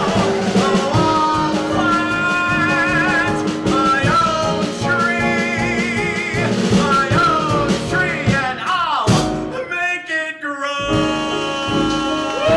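A singer singing a song with wide vibrato, backed by a live band with upright bass. About nine seconds in the sound thins out for a second or two, then the full band comes back.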